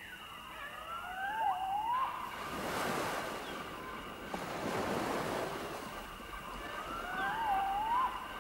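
Waves washing in, surging for a few seconds in the middle. Over them, rising, wavering gliding calls come near the start and again near the end, with a faint steady high tone underneath.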